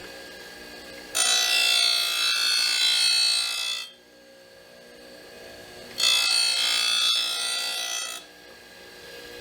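Tool and cutter grinder's wheel grinding along a reel mower's rail in light passes: a loud, high grinding sound twice, about a second in for nearly three seconds and again about six seconds in for about two seconds. The grinder runs with a steady hum in between.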